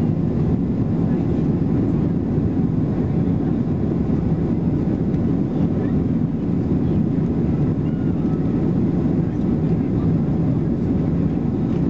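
Steady engine and airflow noise heard inside the cabin of a Boeing 737-800 airliner, a low, even rumble that holds its level throughout.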